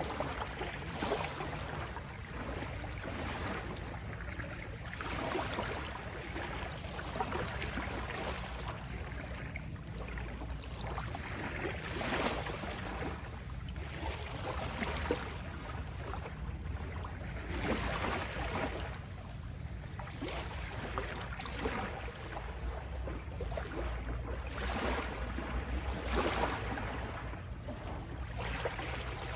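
Small sea waves lapping and rippling at the shore, in irregular washes every second or two over a steady low rumble.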